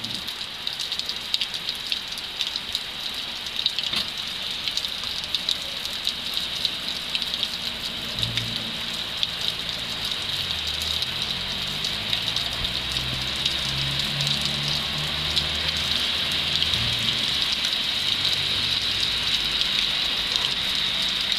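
Steady rain falling, with many sharp clicks of drops striking hard surfaces. From about eight seconds in to about seventeen seconds, a low vehicle engine sound runs beneath it.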